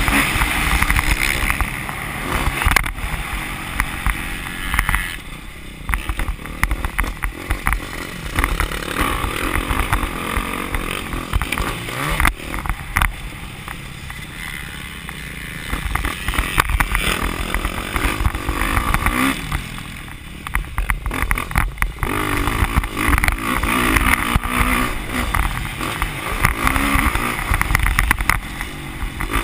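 Dirt bike engine heard from an onboard camera on the bike, revving hard and easing off again and again as the rider works the throttle around a motocross track.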